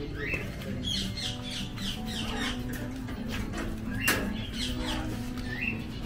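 Parrots chirping and whistling: a short rising whistle right at the start, a flurry of quick chirps about a second in, and another rising whistle near the end. A single sharp click cuts in about four seconds in.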